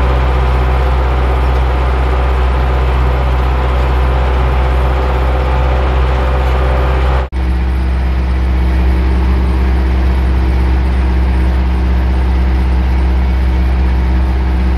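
Zetor 8011 tractor's diesel engine running steadily under load while pulling a ring roller across a field, heard from inside the cab as a loud, even low drone. It drops out for an instant about seven seconds in and carries on at a slightly different pitch.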